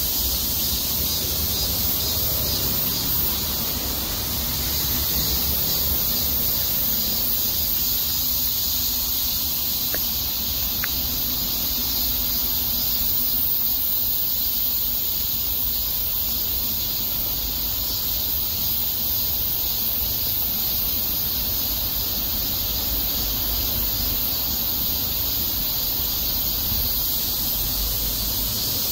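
Steady, high-pitched insect chorus, with a low rumble underneath.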